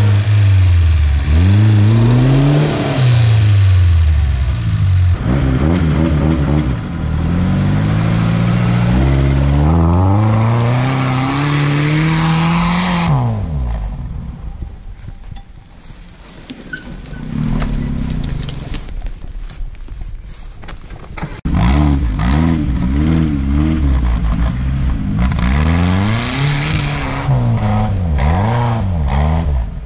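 Off-road vehicle's engine revving up and down again and again under load, as a vehicle stuck in deep mud tries to drive out. It drops away for several seconds in the middle, then revs hard again.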